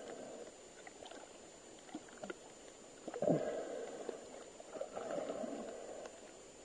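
Muffled water movement and bubbling picked up by an underwater camera: swells of low sloshing noise near the start, about three seconds in and about five seconds in, with scattered faint clicks.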